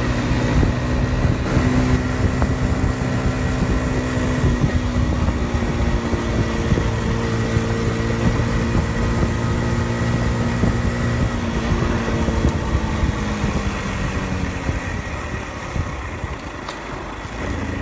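Honda Super Cub 50's small single-cylinder four-stroke engine running while the bike is ridden downhill, under wind rumble on the rider's microphone. The engine note sinks a little and the sound eases off about three-quarters of the way through, then the engine picks up again near the end.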